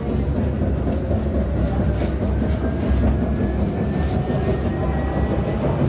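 Light-rail tram running, heard from inside the car: a steady low rumble of wheels on the rails, with a faint whine that rises gently in pitch.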